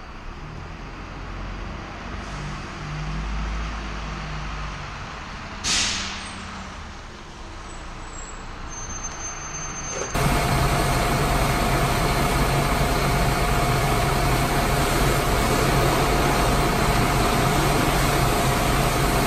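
A single-deck bus moving slowly with a low engine rumble, and a short sharp hiss of air brakes about six seconds in. From about ten seconds a jet washer sprays the bus: a loud steady hiss of high-pressure water with a constant whine over it.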